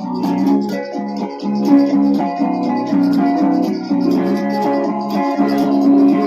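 Instrumental band music: guitars play a moving line of notes over a steady rattling percussion beat, with no singing.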